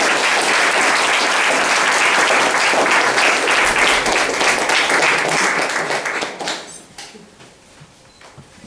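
Audience applauding, a steady clatter of many hands that dies away toward the end.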